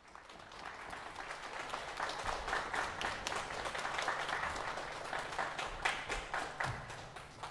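Audience applause: many people clapping, swelling over the first two seconds and dying down near the end.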